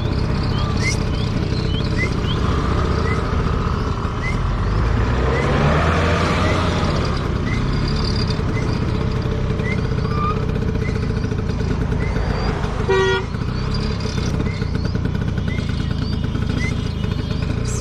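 Scooter engine running at low speed with a steady rumble, as it creeps along beside a flock of sheep and goats; another vehicle's engine rises and passes about a third of the way in. A short horn toot sounds once, about three-quarters of the way through, and faint short chirps repeat over the top.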